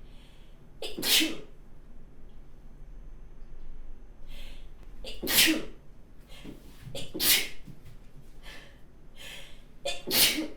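A woman sneezing four times, the sneezes a few seconds apart, with fainter breaths drawn in between them.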